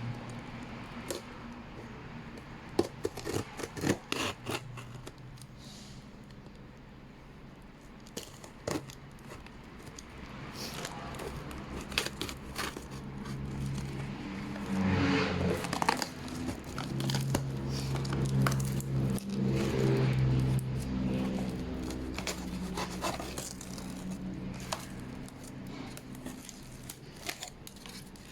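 Packaging being handled and opened: a run of clicks, scrapes, tearing and crinkling, with low steady tones underneath in the middle.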